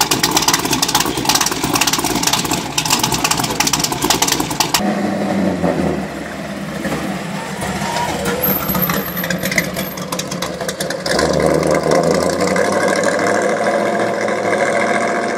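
A hot-rod coupe's V8 with twin exhaust pipes, running loud and lumpy for about five seconds. After a sudden change it drives past, louder again for a stretch about eleven seconds in as it accelerates away, then easing off near the end.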